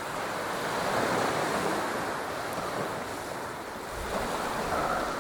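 Ocean surf washing onto the beach, a steady roar of breaking waves that swells about a second in and again near the end. Wind buffets the microphone from about four seconds in.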